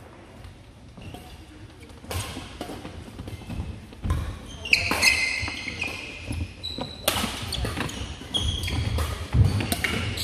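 A badminton rally on a wooden gym court: sharp racket hits on the shuttlecock and footfalls, with short high sneaker squeaks on the floor. It is quiet for the first couple of seconds, then gets busier from about two seconds in.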